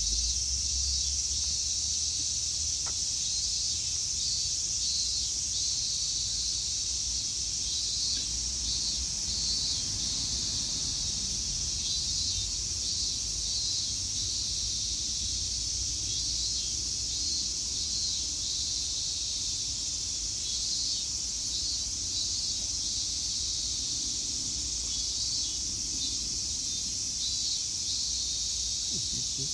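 A steady, high-pitched chorus of insects with a shimmering pulse that comes and goes, over a low rumble.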